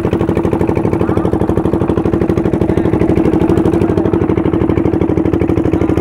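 The wooden river boat's small stern-mounted engine running steadily under way, a fast, even chugging of about eleven beats a second.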